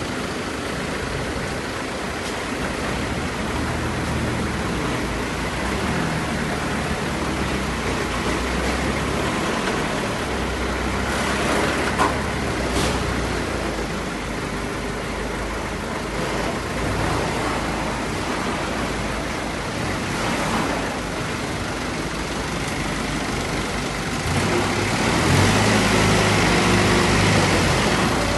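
Vehicle engine running steadily amid general machinery and road noise, with a short sharp knock about twelve seconds in. The engine gets louder about twenty-five seconds in.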